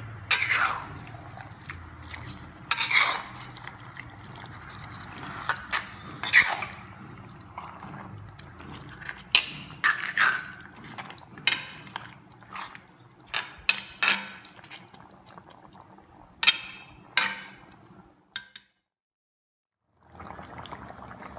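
A metal spoon stirs and scrapes through wet chicken and potato curry in an iron kadai, with irregular clinks against the pan. After a brief break near the end, the watery curry simmers with a steady bubbling.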